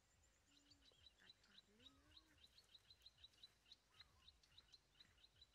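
Faint bird calls in open countryside: a rapid run of short, high chirps, about five a second, starting about half a second in and going on steadily.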